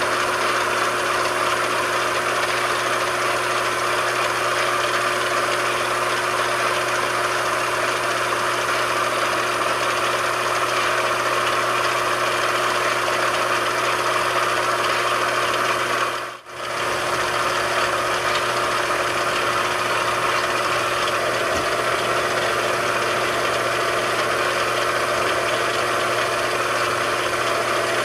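Machine tool running steadily: a continuous mechanical hum with a steady tone. It drops out for a split second about sixteen seconds in, then carries on unchanged.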